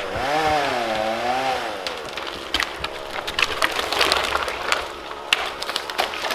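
A wavering, drawn-out pitched sound for the first two seconds, then a run of sharp cracks and snaps of breaking wood as a dead spruce is knocked over.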